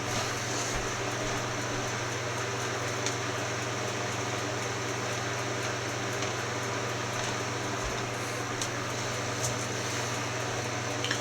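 Steady low hum and hiss of room noise, with a few faint clicks scattered through it.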